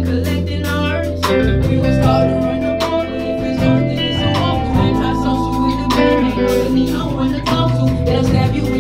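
Live band playing a slow song: electric guitar and bass over keyboard chords with a steady beat, and a woman singing at the microphone.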